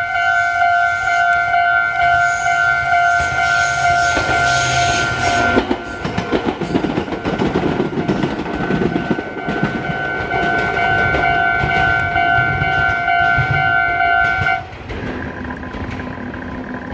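Japanese level-crossing warning bell ringing its steady electronic tone while a Meitetsu 2000-series μSKY train rolls slowly over the crossing, its wheels clacking over the rail joints. The bell stops near the end.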